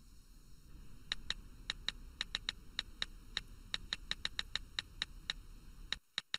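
Smartphone touch-keyboard tap clicks as a text message is typed: a quick, uneven run of short, sharp clicks starting about a second in and cutting off abruptly near the end.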